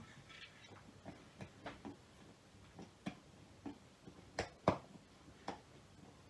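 Irregular light clicks and ticks of a screwdriver and small screws being worked into the plastic window switch housing, about a dozen in all, with the sharpest pair a little past four seconds in.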